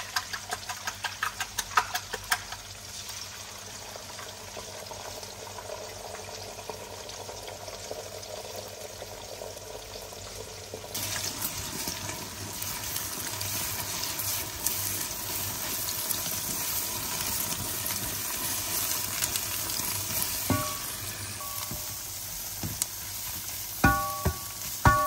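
Food frying in a pan, a steady sizzle that grows louder and brighter about halfway through, with quick stirring strokes at the start. Near the end come a few ringing clinks of a utensil against the pan.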